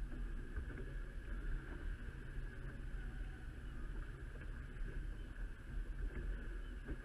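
Wind and water aboard a Shrimper 19 sailing under way: a steady low rumble of wind buffeting the microphone over a constant wash of water along the hull.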